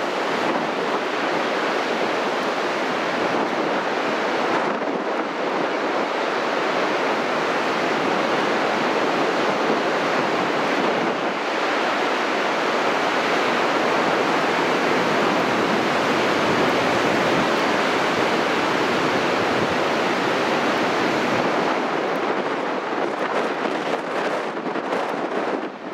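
Nor'easter storm surf: heavy waves breaking and washing in as a continuous, steady rush of white water, with wind noise on the microphone.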